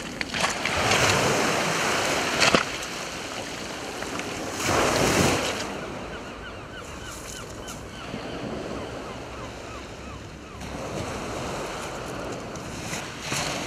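Small waves breaking and washing up a shingle beach, loudest in two surges a few seconds apart, then a quieter steady wash.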